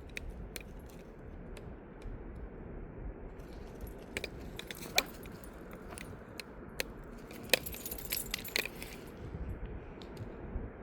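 Small metal pieces jingling and clinking in irregular clusters, busiest from about four to nine seconds in, over a low steady background rumble.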